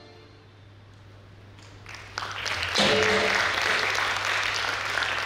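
The last held note of the dance music fades away, then audience applause breaks out about two seconds in, with a brief shout rising over it near the three-second mark.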